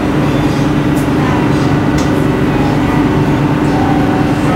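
Fishing boat's engine running steadily, a loud even drone heard from inside the cabin, with a couple of faint hand claps about one and two seconds in.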